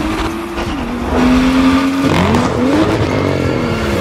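BMW M2's turbocharged straight-six revving hard through an Akrapovič Evolution Line titanium exhaust. The pitch climbs, drops sharply about two-thirds of a second in as the car shifts up, holds, then swings up and down from about two seconds in.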